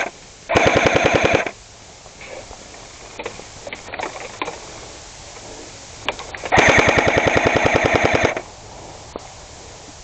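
Airsoft gun firing full-auto bursts of rapid, evenly spaced shots. The first burst lasts about a second, starting half a second in, and a longer burst of about two seconds starts around six and a half seconds in. Scattered faint single pops come in between.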